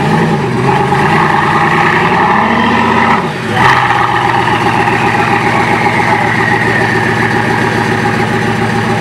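Bugatti Vision GT's engine revving with rising pitch for about three seconds as the car strains to climb a truck's loading ramp, then a sharp knock. After it the engine settles to a steady, lower note while a high whine slowly falls.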